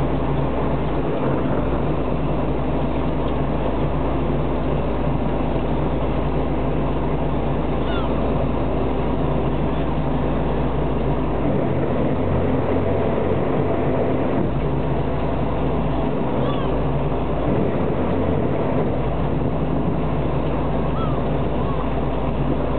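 Fishing boat's engine running steadily with a low hum, and a few faint seagull calls over it.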